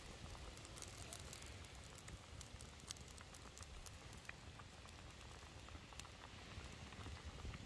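A pan of sheep-head broth cooking over an open fire: faint scattered crackles and small pops over a low hiss.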